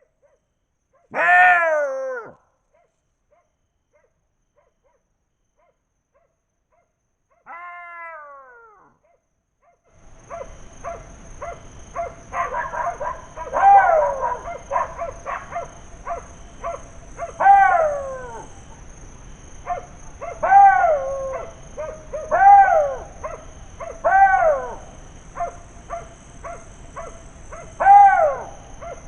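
Golden jackals howling: one loud falling wail about a second in and a fainter one around eight seconds. From about ten seconds on comes a chorus of repeated falling wails mixed with quick short yelps, over a steady high-pitched tone.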